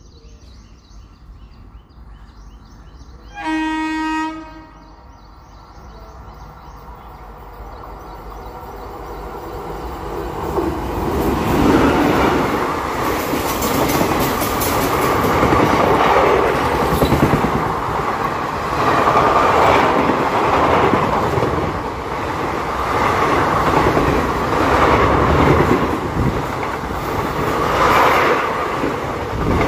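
Indian Railways passenger express train approaching at speed. The locomotive gives one horn blast about a second long, about four seconds in. Then the rumble swells as it nears, and from about eleven seconds the coaches run close past with continuous wheel clatter and rumble.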